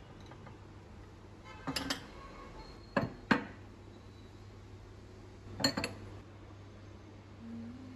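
Ceramic bowls and glass cups clinking as they are set down on a cabinet shelf: a short cluster of clinks about two seconds in, two sharp clinks around three seconds, and another cluster near six seconds.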